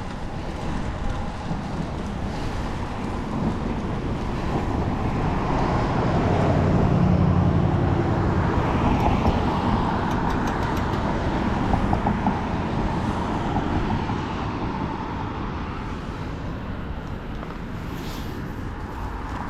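Road traffic noise, with a motor vehicle passing close by. The noise swells toward the middle and then fades.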